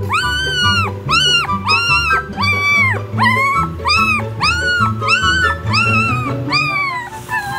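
A two-to-three-week-old puppy crying in a string of about a dozen short whines, roughly one and a half a second, each rising and then falling in pitch, over background music.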